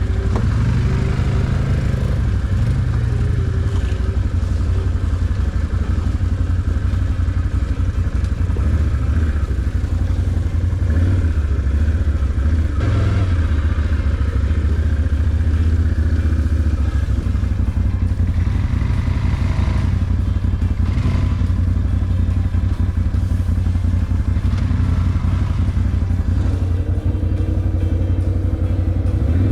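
Can-Am ATV engine running steadily while riding, heard from on board, its pitch shifting a little, with a few brief knocks.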